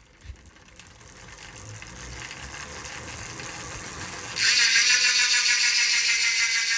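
Farsports rear hub with a 36-tooth ratchet: a quiet whir builds as the rear wheel is spun up. About four seconds in, the hub's loud, rapid freewheel ratchet buzz starts suddenly as the wheel coasts.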